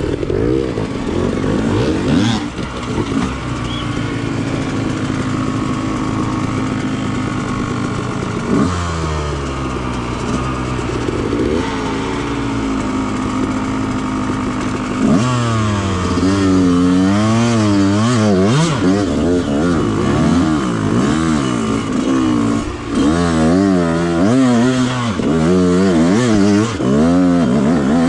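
Yamaha YZ125X 125 cc two-stroke single-cylinder dirt bike engine under way. It holds a steady pitch for several seconds, falls off about eight seconds in, rises briefly, and in the second half is revved up and down over and over as the throttle is worked.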